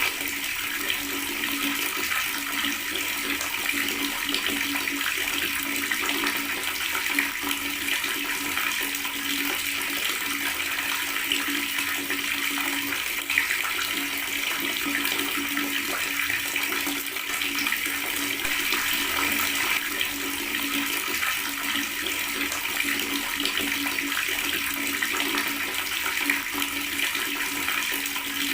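Water running steadily from a tap, a continuous gurgling stream with no breaks.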